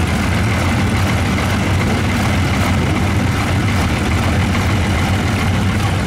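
12-valve Cummins inline-six diesel with compound turbochargers idling steadily with a deep, even rumble.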